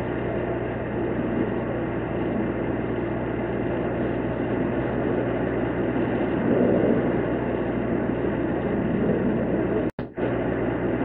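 Steady low rumble of idling engines mixed with outdoor street noise. The audio cuts out briefly about ten seconds in.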